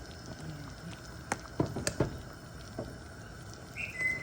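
A pot of arroz caldo (rice porridge) simmering, with a few light knocks of a utensil against the pot about a second and a half to two seconds in. A brief high tone sounds near the end.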